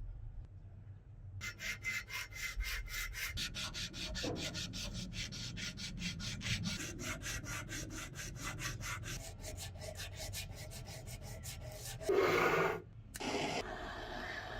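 Hand sanding or scrubbing in quick, even back-and-forth strokes, about four a second, stopping about twelve seconds in. Two short, louder noises follow near the end.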